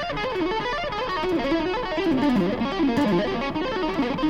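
Electric guitar playing a fast symmetrical lick of stacked minor thirds, a rapid run of notes stepping up and down without a break.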